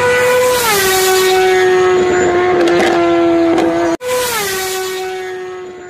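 An engine sound effect played twice, the same each time: the pitch drops in the first half-second, then holds steady, and the second playing fades away.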